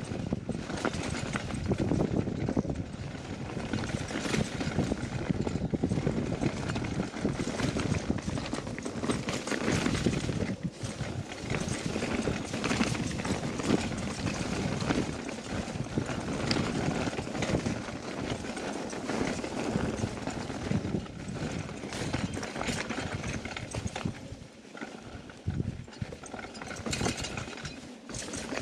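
Electric mountain bike rattling and clattering over a rocky, rutted trail, its tyres rolling over loose stones and the frame and parts knocking on every bump. Among the clatter is a rattle that the rider takes for something having come loose.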